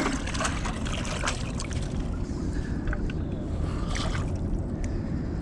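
Handling noise from a handheld camera rubbing against a jacket: a few soft rustles and small clicks over a steady low rumble on the microphone.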